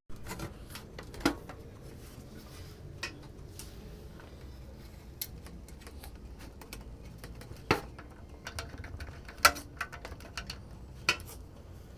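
Irregular light clicks and knocks of hard computer parts being handled and fitted together, with a few sharper clacks, over a steady low hum.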